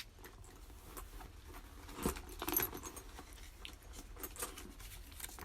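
Small clicks and light metallic jingling as a leather handbag is handled, its metal hardware clinking; the loudest rattle comes about two seconds in.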